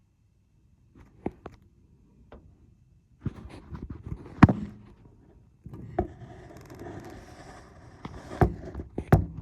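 Handling noise: a series of sharp knocks and clunks, the loudest about four and a half seconds in, with rustling and scraping between them in the second half.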